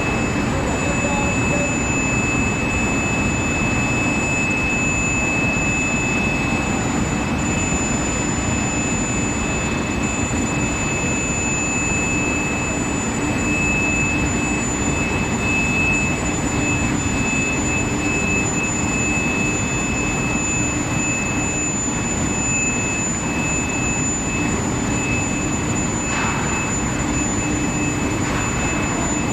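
Induction hardening and tempering line for threaded steel bar running: a steady machinery noise with two steady high-pitched whines over it.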